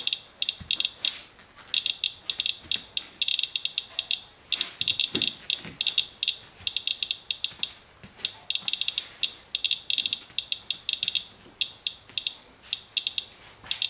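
Medcom Inspector Geiger counter chirping with each count, many short high chirps a second in irregular clusters and gaps. It is measuring a paper towel wiped with rainwater, and the fast count signals radioactivity well above background.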